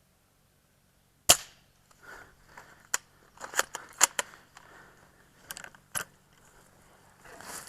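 A single sharp shot from an ARES AW .338 spring-powered bolt-action airsoft sniper rifle about a second in, followed by a series of lighter clicks and knocks.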